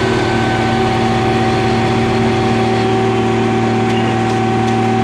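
A car crusher's engine-driven hydraulic power unit running steadily: an even engine hum with a constant whine over it. A few faint ticks come about four seconds in.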